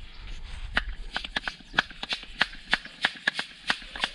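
An irregular run of sharp clicks and ticks, a few a second, from a bicycle wheel and its tyre being handled during a roadside puncture repair.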